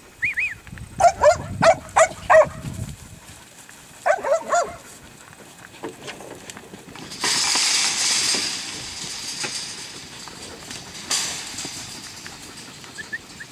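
Working cattle dog barking in two quick bursts, about six short barks a second into the clip and a few more around four seconds in, as it drives cattle. Later comes a couple of seconds of even rushing noise and a single click.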